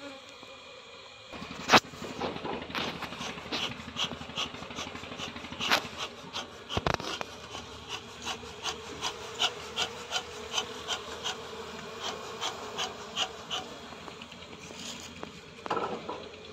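Honeybees buzzing around an open hive as a frame of bees is handled. From about a second in, a run of short sharp scraping strokes repeats two or three times a second.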